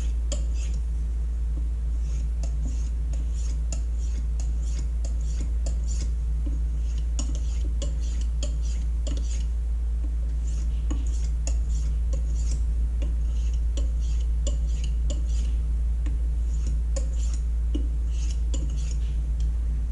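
Knife edge being drawn in light strokes across a 6,000-grit sharpening stone, a long run of short high scrapes, to refine the burr at the end of sharpening. A steady low hum runs underneath.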